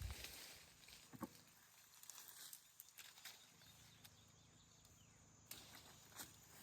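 Near silence: faint outdoor background with a few soft scattered clicks and rustles.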